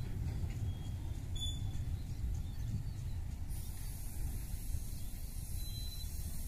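Railway fuel tank wagons rolling past on the track with a steady low rumble. A high hiss comes in about halfway through.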